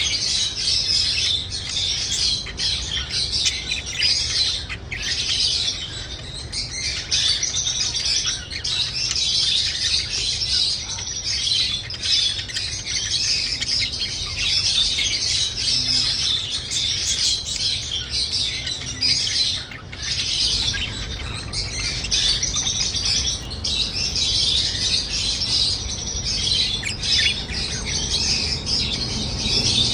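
Pet birds chirping and chattering without pause, many short calls overlapping, over a steady low hum.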